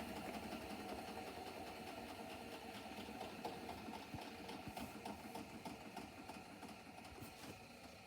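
Hotpoint WMFUG942 washing machine's drum and motor running with a steady mechanical hum, slowly getting quieter, with a few faint clicks. The owner says the machine is dying, with an off-balance drum spider.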